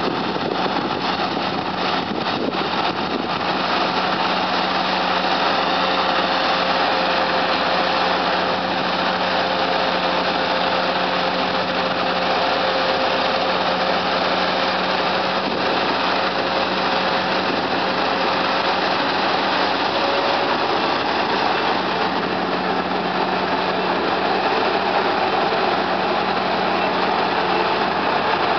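Head-feed combine harvester running steadily while reaping rice: its engine and threshing machinery make a continuous mechanical din with a steady hum.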